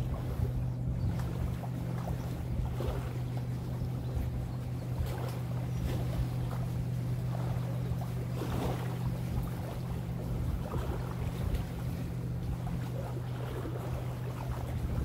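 Lakeside ambience: a steady low engine drone under wind and small waves lapping at the shore.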